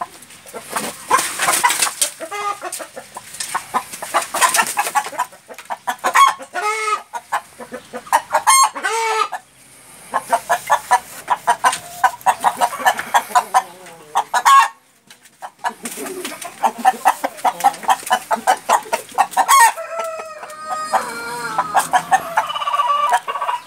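Índio Gigante chickens clucking in fast runs of short clucks, with a few short pitched calls about six and nine seconds in. Near the end comes a long crow in stepped pitches from an Índio Gigante rooster.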